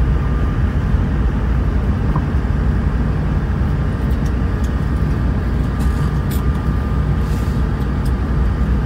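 Steady low rumble of running machinery, with a faint steady hum above it.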